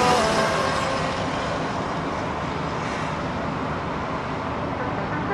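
Steady engine and tyre noise of a car driving along a road, heard from inside the cabin.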